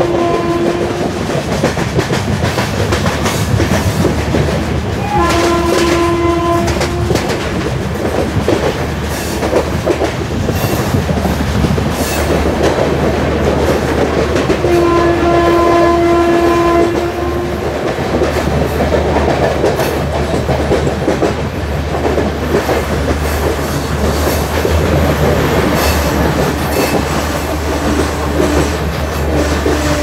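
WAG5A electric locomotive's horn sounding three blasts of about two seconds each, the first already going at the start. Under them runs the steady rumble and clickety-clack of LHB coaches on the track.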